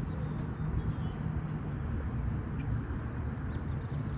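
Faint, high bird chirps over a steady low rumble and hum.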